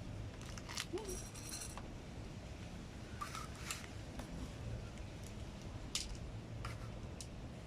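A cat crunching dry food: scattered sharp crunches and clicks at irregular intervals, with a brief crinkly rattle about a second in.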